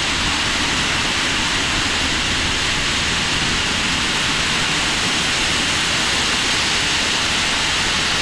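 Grain bin aeration fan running, a loud steady rush of air with a low hum beneath it, heard from inside the empty steel bin.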